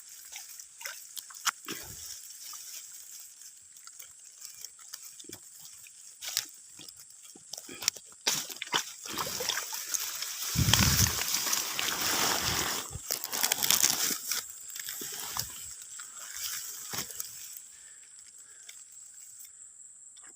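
Water sloshing and splashing, loudest from about ten to fifteen seconds in, amid scattered small clicks and knocks.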